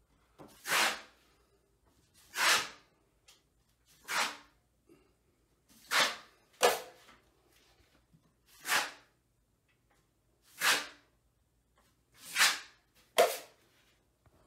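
Wide steel drywall taping knife swiped across joint compound on drywall: about nine short scraping strokes, one every one and a half to two seconds, as the mud is smoothed and feathered along a taped joint.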